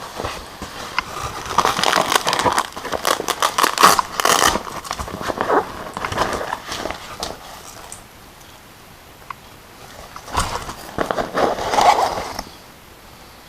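Plastic and cardboard packaging crackling and crinkling as it is handled and torn open, in irregular bursts, with a lull about eight seconds in before another burst.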